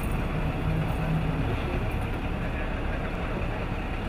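Steady engine rumble from a fuel tanker truck running during refuelling of a helicopter.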